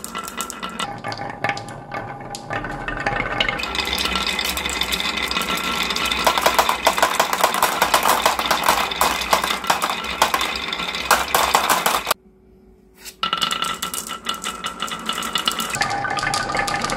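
Many glass marbles rolling and clattering through carved wooden wave-shaped tracks of a marble run: a dense, busy stream of clicks and knocks. It breaks off for about a second roughly twelve seconds in, then resumes.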